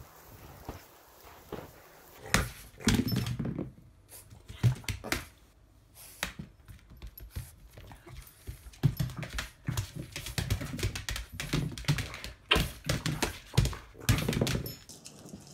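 A Boston terrier playing with a small toy on a tile floor: irregular knocks and clicks of the toy and its claws on the tiles, starting about two seconds in.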